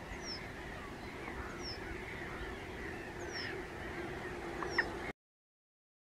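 Lakeside birds calling: a short, high, falling note repeats about every second and a half over other wavering calls, with a low wind rumble underneath. The sound cuts off abruptly about five seconds in.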